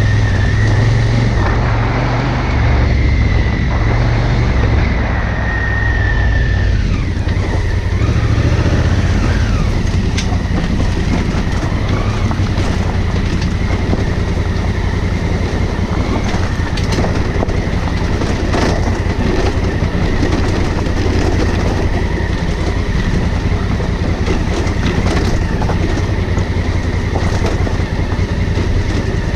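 Honda Africa Twin CRF1000L's parallel-twin engine running steadily on the move, mixed with continuous road and wind noise.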